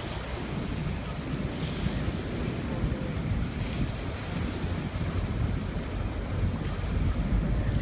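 Steady rush of a flooded river, with wind buffeting the microphone in a low rumble that grows a little louder near the end.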